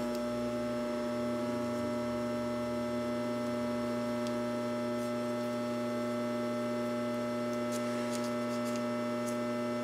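Steady electrical mains hum, a constant low buzz with several steady tones. A few faint ticks of the cord being handled come near the end.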